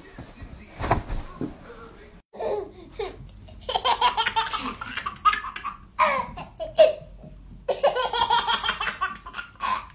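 Baby laughing in repeated bursts, in two spells with a short pause between them. It is preceded about a second in by a single thump.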